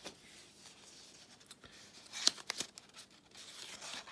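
Packaging being handled while accessories are unpacked: faint rustling, then a few sharp crinkles and clicks about two seconds in, and a softer rustle near the end.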